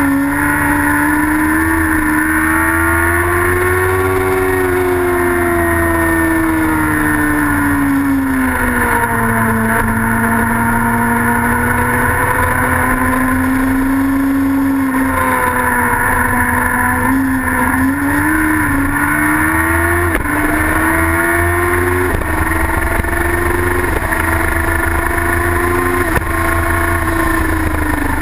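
Racing sidecar outfit's engine running hard on track. Its pitch climbs and sinks through the corners, with several quick jumps and dips in the second half.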